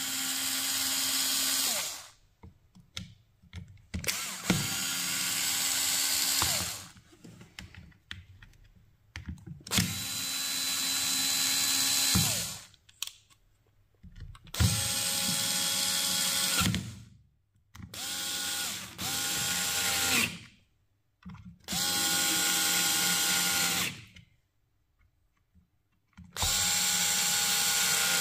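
Parkside PSSA 4 B2 cordless screwdriver driving screws into a plastic tool housing. It runs in about eight short bursts of one to three seconds each, a steady motor whine that drops in pitch as the trigger is released.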